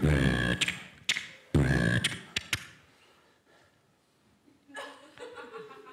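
Vocal sound effects made with the mouth into a handheld microphone, beatbox-style: two deep booming blasts each followed by sharp clicks, then after a pause a softer pitched vocal tone near the end.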